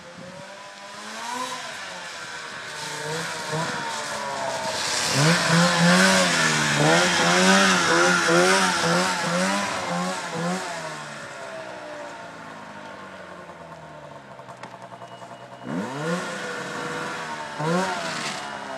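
Arctic Cat ZL600 snowmobile's two-stroke engine revving up and down as the sled comes in and passes close, loudest and hissiest about six to nine seconds in, then easing off. Near the end the throttle is blipped sharply twice.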